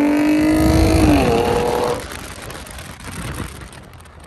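A car engine held at high revs, its pitch creeping slightly upward. The revs drop about a second in and the sound dies away about two seconds in.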